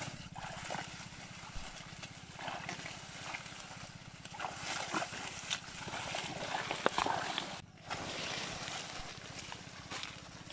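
Hands digging through shallow pond mud and a mat of water hyacinth: muddy water sloshing and plant stems rustling in short, irregular spells.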